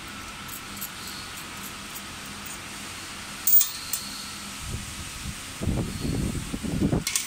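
Steady hum of an idling punching machine. About three and a half seconds in, a sharp metallic clink of small steel parts on the machine's steel table, with a lighter one just after and another near the end. Low rumbling handling noise follows about two seconds before the end.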